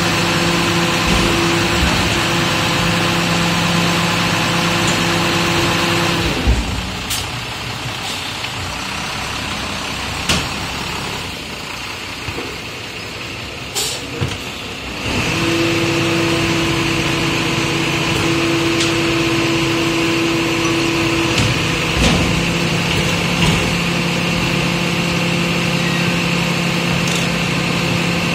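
Rear-loading garbage compactor truck running its hydraulic packer: the engine is held at raised revs with a steady drone and whine. About six seconds in it drops back to a quieter idle with a few sharp knocks, and it rises again about halfway through for another steady packing cycle.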